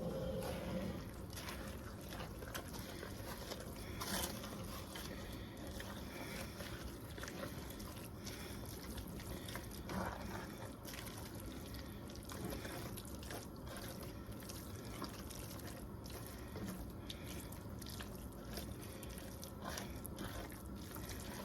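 Shredded chicken in chicken broth and cream of chicken soup heating in a pot: a faint steady bubbling with scattered small clicks.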